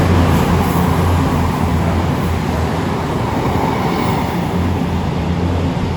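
Diesel passenger train running with a steady low engine drone over a rumble from the wheels, slowly getting quieter.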